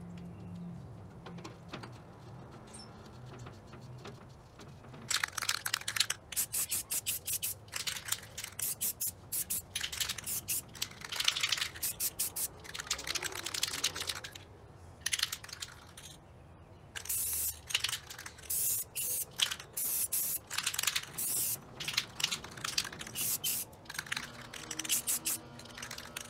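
Aerosol rattle can of clear coat spraying in short repeated hissing bursts, starting about five seconds in, with a pause of a few seconds midway.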